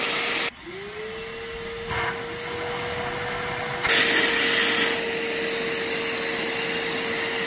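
Vacuum cleaner running with a steady whine, its hose drawing a twine guide line through buried PVC conduit. About half a second in, the sound drops and goes muffled as the hose seals on the conduit end, and the whine dips and climbs back. About four seconds in, it goes loud again as the hose comes free.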